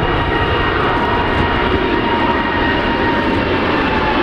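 Airbus A380's four turbofan engines as the airliner flies overhead: a steady, dense jet noise with a few thin whining tones that slide slowly lower in pitch.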